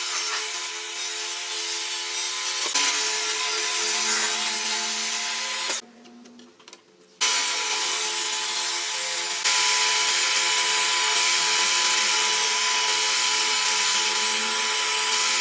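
Electric power tool running steadily as it works wood, with a steady motor hum under the noise of the cut. The sound drops away for about a second and a half around six seconds in, then carries on.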